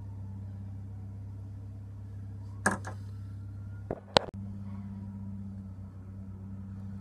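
A steady low hum, with a few sharp clicks or knocks about two and a half and four seconds in; the knock near four seconds is the loudest.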